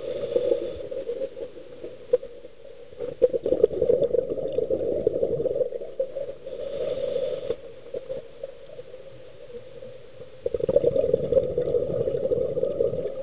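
Scuba diver's regulator breathing underwater in a slow cycle: a short hiss of inhalation, then a long rush of exhaled bubbles, heard twice.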